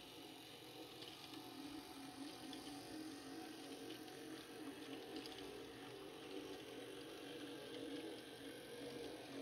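N-scale model diesel locomotive running along the track with its train. Its motor and gears make a faint steady whir, with light scattered clicks from the wheels on the rails.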